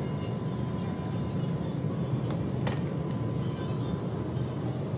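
Steady low hum of supermarket refrigerated freezer cases and store ventilation, with a couple of short clicks about halfway through.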